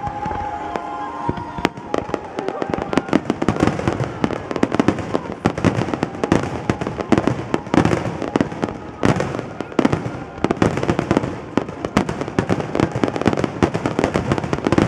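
A barrage of aerial firework shells bursting in rapid, overlapping succession, a dense run of bangs and crackles. It starts thinner for about the first second and a half, then thickens into a near-continuous volley.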